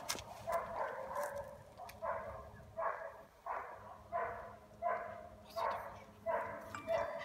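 A dog barking steadily and rhythmically, about one bark every three-quarters of a second.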